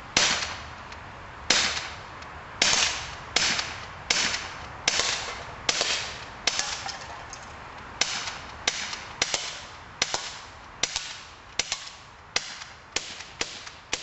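CO2-powered BB pistol firing a fast string of about eighteen sharp pops, each trailing off briefly, the shots coming closer together near the end; it has a freshly fitted CO2 canister.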